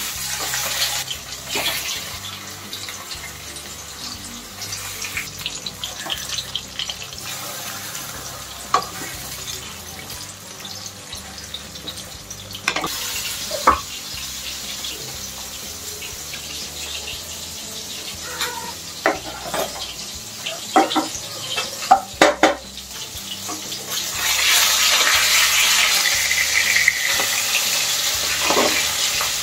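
Katla fish pieces shallow-frying in hot oil in a wok, with a steady sizzle. Scattered knocks and scrapes of a wooden spatula against the pan come through, mostly in the second half, and the sizzle gets louder near the end.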